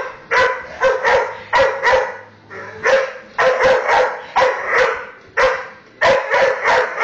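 Staffordshire bull terrier barking rapidly and repeatedly, in quick volleys of two to four sharp barks with short pauses between them: agitated barking at a vacuum cleaner.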